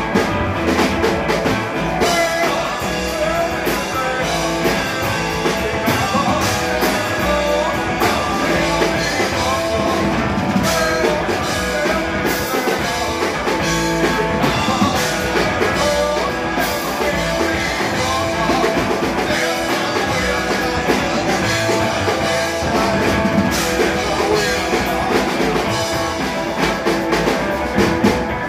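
Live rock band playing: an amplified electric guitar and a drum kit, with a man singing.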